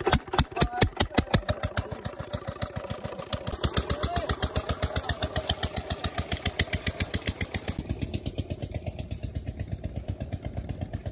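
Stationary diesel engine driving a tubewell pump, just hand-cranked into life and running with a rapid, even chug.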